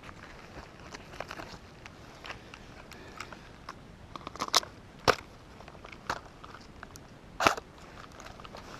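Footsteps crunching and snapping on dry brush and ground: irregular crunches, with a few louder ones about halfway through and near the end.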